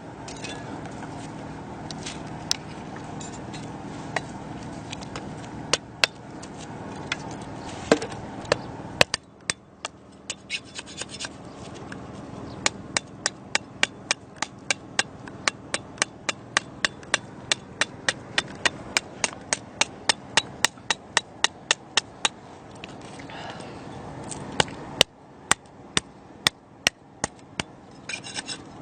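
Short sharp knocks: a few scattered ones at first, then a steady run of about two to three a second for some ten seconds, with more near the end.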